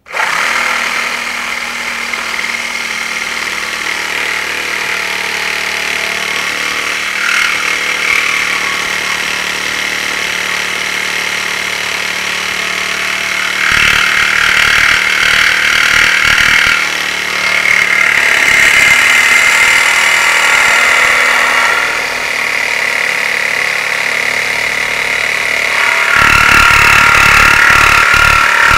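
Compact cordless reciprocating saw with a metal-cutting blade sawing through a thick square steel tube: the saw starts at once and runs without a break, the rasping screech of the blade on steel swelling louder in stretches as the cut goes deeper, loudest near the end.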